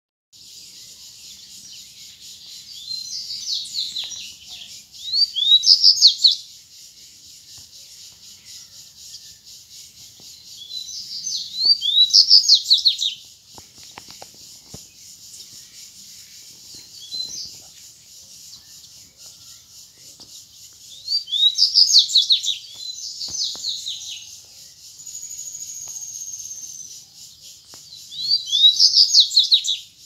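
Wild double-collared seedeaters (coleiros) singing the 'grego' song type. Four bursts of fast, high twittering phrases, each a second or two long, come roughly every seven to eight seconds over a steady high hiss.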